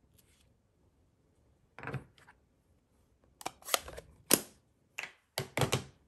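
Hard plastic stamping supplies, a clear acrylic stamp block and a stamp pad, being handled and put down on a tabletop: a soft thump about two seconds in, then a quick run of sharp clicks and knocks over the last few seconds, loudest about halfway through.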